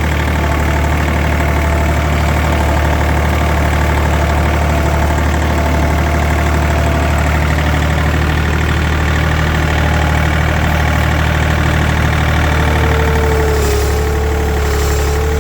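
Tractor engine running steadily at a low, even pitch. A higher, steady whine joins in near the end.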